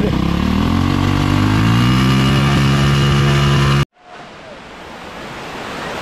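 A vehicle engine revving up, its pitch rising for about two seconds and then holding steady, until it cuts off abruptly. Then the steady rush of flowing water, swelling.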